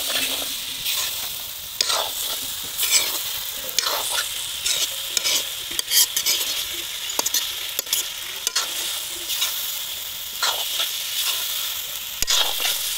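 Chicken pieces and green chillies sizzling as they fry in a wok, with a spatula stirring and scraping the pan about once a second over the steady hiss of the oil.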